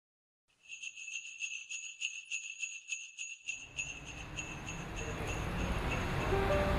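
Sleigh bells shaken in a steady rhythm, about four shakes a second, as the opening of a Christmas music track. From about three and a half seconds a low swell rises under them and the bells fade as the music builds, with tuned notes coming in near the end.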